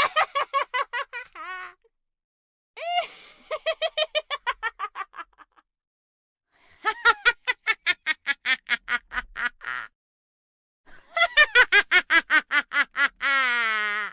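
Comic cartoon-style sound effects: four bursts of quick, high-pitched staccato calls like a sped-up laugh or quack, about six a second, with short silences between. The last burst ends in a drawn-out falling note.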